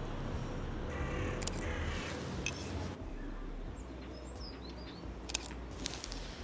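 Outdoor park ambience: a steady low rumble with birds calling, a short call about a second in and high chirps around the middle, and a few sharp clicks.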